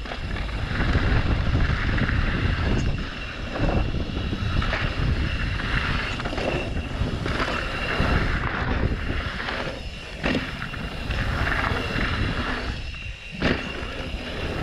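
Mountain bike descending a dry dirt trail at speed: wind on the microphone and the tyres rolling over dirt, with a few sharp knocks and rattles from the bike over bumps.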